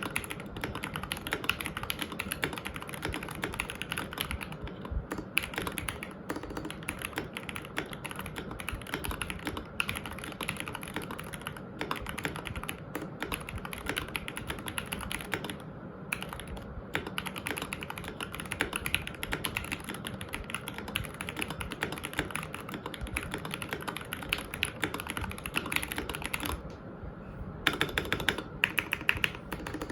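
Continuous typing on an RK68 mechanical keyboard with Gateron Milky Yellow Pro linear switches, thick PBT keycaps, lubed stock stabilizers and the tape mod: dense, steady keystrokes. There are brief pauses a little past halfway and near the end, and a run of fast, even strokes follows the last pause.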